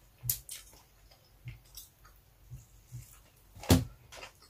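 Close-miked mouth sounds of someone eating: wet chewing and lip smacks in short, irregular clicks, with one louder smack about three-quarters of the way through.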